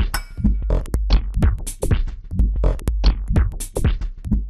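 Electronic intro music: a fast drum-machine beat of sharp hits over a heavy, continuous bass.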